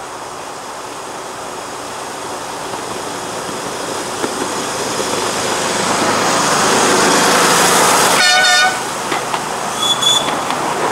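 A 7¼-inch gauge miniature locomotive hauling passenger carriages approaches and runs past close by, the running noise of the train on the rails growing steadily louder, then one short horn toot about eight seconds in.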